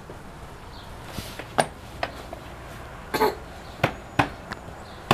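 A baby in a plastic baby walker knocking against it: a string of sharp plastic knocks at uneven spacing, with one short cough about three seconds in.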